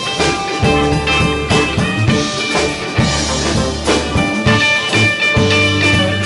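Live band playing a groove with a steady beat on drum kit, electric bass, electric guitars and keyboard.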